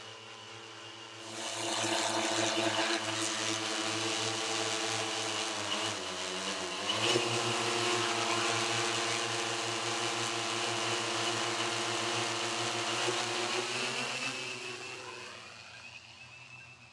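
Multirotor search-and-rescue drone's propellers whining as it flies close by. The pitch dips around six seconds in and picks back up, then the sound fades as the drone flies off near the end.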